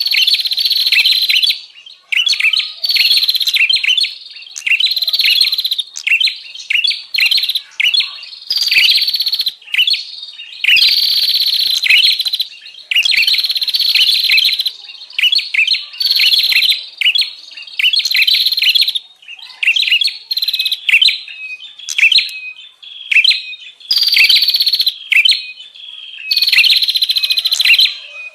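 Prinia (prenjak) calling busily: rapid, loud chirping phrases of about half a second to two seconds, one after another with short breaks, from a recording used as a lure call for wild prinias.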